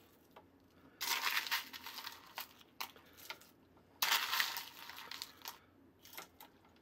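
Crushed ice being scooped from a plastic bowl with a small plastic scoop, two scoops about three seconds apart, each a rustling scrape lasting a second or so. Between them come a few light clicks as ice is tipped into the plastic reservoir of juice.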